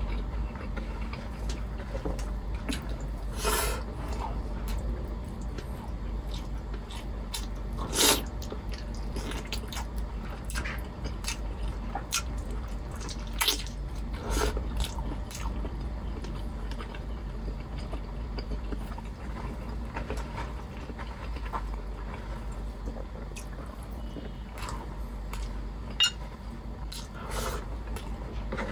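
Close-miked eating by hand: wet chewing and lip-smacking, with squelches as fingers pick beef ribs out of a thick sauce. Scattered small clicks run through it, with a few sharper ones, over a steady low hum.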